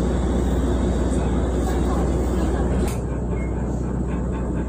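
Pingxi Line diesel railcar running along the track: a steady low rumble and running noise heard from inside the carriage. There is one sharp click about three seconds in, and the sound is a little quieter after it.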